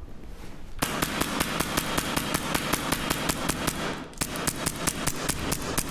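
Airsoft gun firing a rapid string of shots, about five or six sharp clacks a second, with a brief pause about four seconds in.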